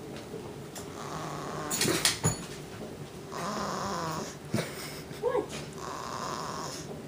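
A two-month-old pet snoring in her sleep: three drawn-out snores a couple of seconds apart. A few sharp knocks come about two seconds in. The owner puts the snoring down to the way she is lying.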